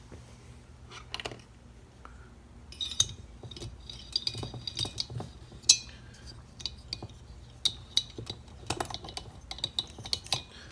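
Small metal parts and hand tools clinking and clicking: the steel mounting screws and Torx bit being handled and fitted while the new cylinder is bolted onto a chainsaw crankcase. A few scattered clicks at first, then a quick run of sharp ringing clinks from about three seconds in.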